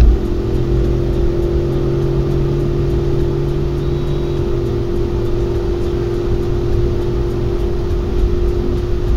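Car cabin noise at motorway speed: a steady low engine hum and road rumble, with the hum dropping slightly in pitch about halfway through.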